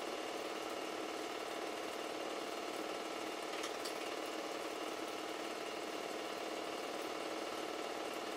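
Super 8 film projector running: a steady mechanical whir with a fast, even clatter from the film transport.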